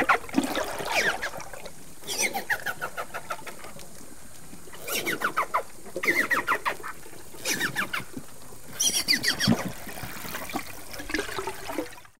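Amazon river dolphin (boto, pink river dolphin) calling: about six bouts of rapid pulsed clicks, each sweeping down in pitch, with a steady faint hiss between them.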